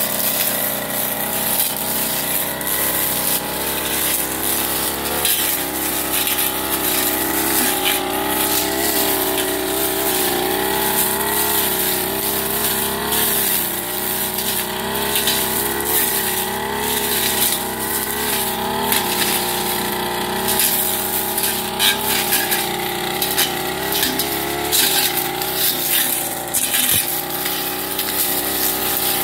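Backpack brush cutter's petrol engine running at working speed, its pitch wavering up and down as the spinning blade meets grass and weeds. Short crackles sound each time the blade snaps through stems.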